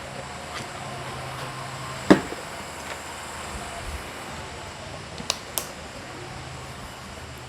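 ProtoTrak CNC knee mill running with a steady low hum, with one loud sharp metallic clank about two seconds in and two quick clicks a little past halfway.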